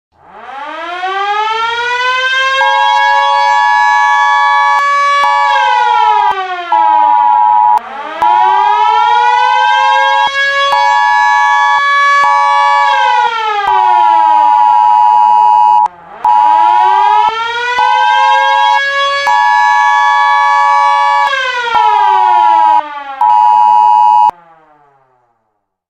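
Emergency alarm siren with many overtones winding up, holding and winding down three times, about eight seconds a cycle. A steady two-note tone pulses on and off over it in long and short beeps. It all cuts off near the end.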